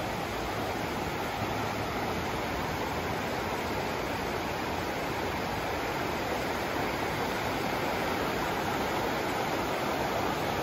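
River water rushing steadily over rocky shoals, an even, unbroken rush.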